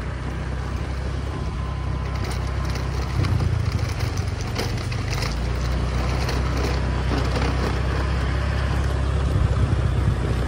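Motorcycle engine running steadily at low road speed along a dirt track, with tyres crunching over gravel and dirt; a gritty, crackling patch comes between about two and five seconds in.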